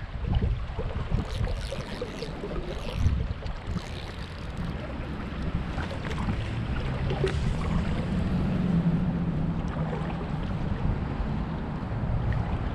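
Wind buffeting the microphone over the steady rush of river water around a wading angler, with a few brief sharp sounds in the first four seconds.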